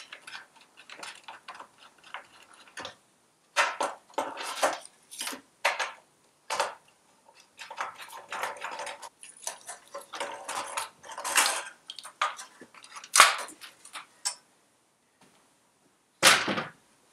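Irregular metallic clanks, scrapes and rattles of the fan cowling being worked loose and lifted off a Citroën 2CV flat-twin engine, with a heavier clunk near the end.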